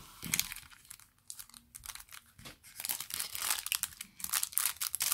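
Foil wrapper of an Adrenalyn XL football trading-card booster pack being torn open and crinkled in the hands. The crackling is sparse at first and thickens into a dense run from about halfway through.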